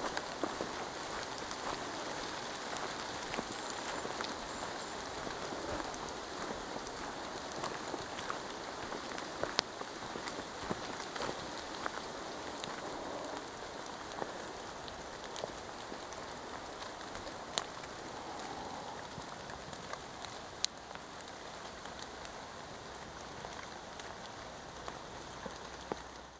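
Steady rain falling: an even hiss, with scattered sharp clicks of single drops.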